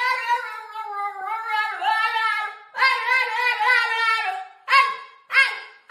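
A dog howling and whining in long, wavering calls: two drawn-out calls, then two short ones near the end.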